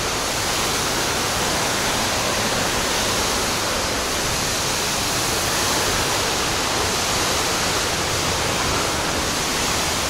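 Waterfall and its rocky mountain stream rushing steadily: a constant, even wash of falling and tumbling water with no breaks.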